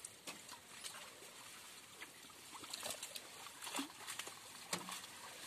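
Faint sloshing and splashing of shallow muddy water as people wade and push a hand net through floating water hyacinth, with scattered small clicks and drips.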